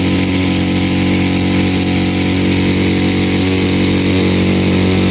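Small engine of a portable water pump running steadily at a constant speed, pumping water into a rat burrow.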